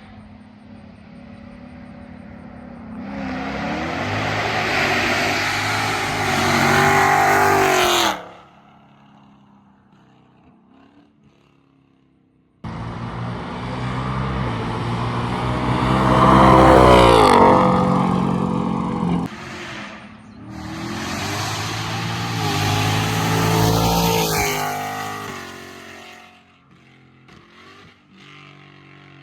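S650 Mustang GT's 5.0 Coyote V8 with Kooks long-tube headers and an X-pipe, accelerating hard past in three separate flyby runs. The exhaust note climbs and falls as it revs through the gears, and the first run stops suddenly.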